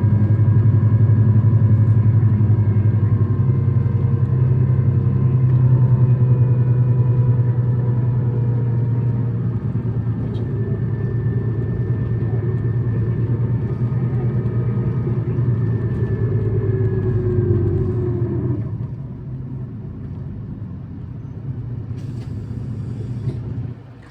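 City bus engine running hard with a steady drone and a thin whine, the bus's engine note then drops off about three-quarters of the way in as it comes off the throttle and slows. The bus is one labelled as a high-revving, abnormal-noise vehicle.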